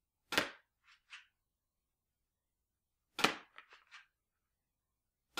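Sig Sauer P226 airsoft spring pistol firing three single shots about two and a half seconds apart, each a sharp snap followed by a few fainter clicks. The last shot falls right at the end.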